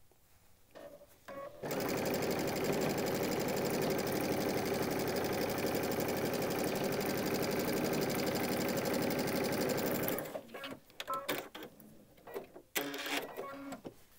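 Computerized 'Destiny' sewing machine stitching a quarter-inch seam at a steady, even speed. It starts about a second and a half in and stops about ten seconds in, followed by a few light handling clicks and rustles.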